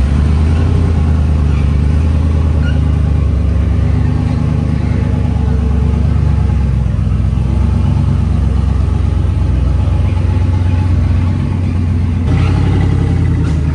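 A swapped-in 6.2L V8 in a 2024 GMC Sierra, running steadily and loudly through stock manifolds and cats with the muffler cut off.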